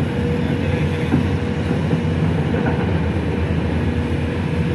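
Heavy diesel engine running steadily, with a faint steady whine over it.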